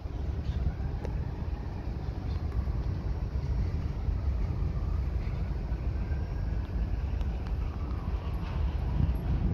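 Freight train of open-top hopper cars rolling past, a steady low rumble.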